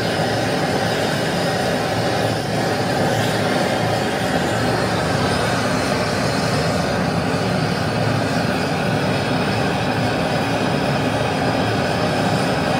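Steady rumbling roar of a gas burner flame, even and unbroken throughout.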